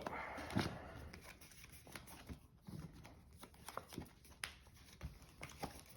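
Yu-Gi-Oh! trading cards being shuffled and handled on a table: faint, scattered light clicks and taps.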